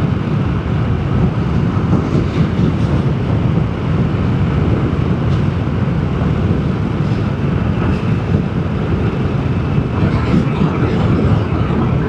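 Vespa GTS 300 scooter riding along steadily, its single-cylinder four-stroke engine running under a constant drone of road and riding noise.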